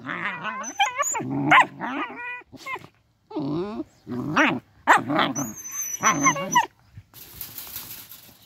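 Puppies play-fighting, giving a quick run of short growly yelps and whines that bend up and down in pitch. The calls stop a little before the end and give way to a faint rustle.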